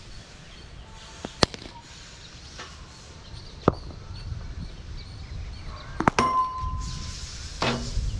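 Sharp knocks of a cricket ball being hit in batting practice, a few seconds apart. The loudest, about six seconds in, is a double knock followed by a clear ring lasting under a second.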